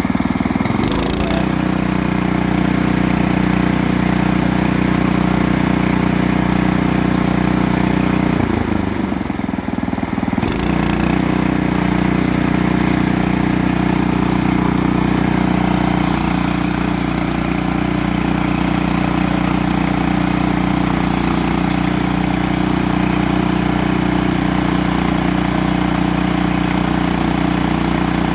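Sawmill engine running steadily under a constant load. Its tone shifts just after the start and dips briefly about nine to ten seconds in before settling again.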